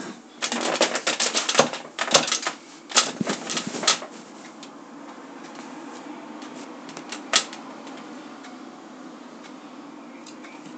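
Handling noise from the camera being picked up and repositioned: a quick run of clicks and knocks on the camera body during the first four seconds, and one more sharp click a little past the middle. A steady low hum runs underneath.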